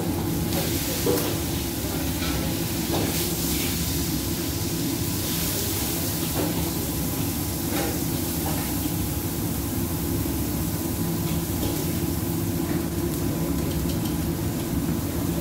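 Gas burner of a commercial wok range running with a steady low rumble, with a few light clinks of a metal ladle in the wok.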